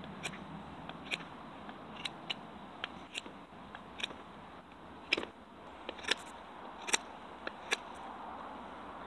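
Condor Bushlore knife blade shaving a hardwood tent stake to a point: irregular sharp snicks as each cut bites and strips off wood, about two a second, the loudest in the second half.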